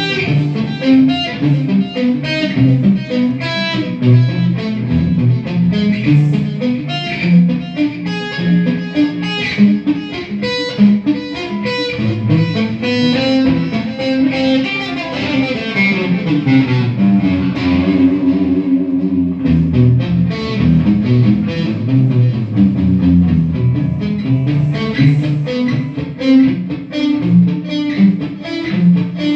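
Electric guitar played through a combo amplifier with a distorted crunch tone: fast runs of picked lead notes over lower chords, with a stretch of longer held and sliding notes around the middle.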